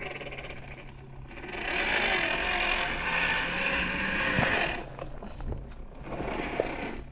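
Small MN78 RC crawler driving, its electric motor and gears whirring over a steady low hum. It swells louder from about a second and a half in and eases off after about five seconds.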